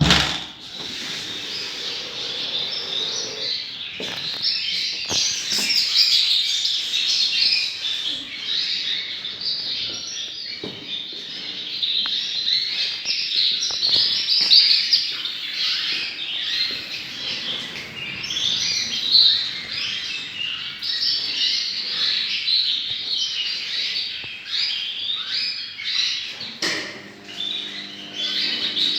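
Many Yorkshire and Crest canaries chirping and singing at once, a dense, continuous high twittering. A low steady hum joins near the end.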